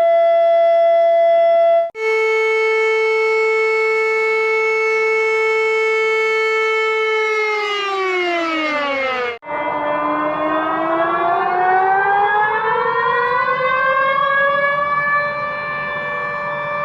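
Emergency alert alarm and siren tones played in reverse. A steady multi-pitched alarm tone stops about two seconds in, and a held siren tone follows that slides down in pitch and cuts off sharply about nine seconds in. Another siren tone then rises in pitch and levels off.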